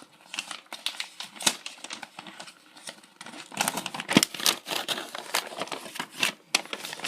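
Paper instruction leaflet being taken out and unfolded by hand: irregular crinkling and rustling with sharp little clicks, busiest in the middle.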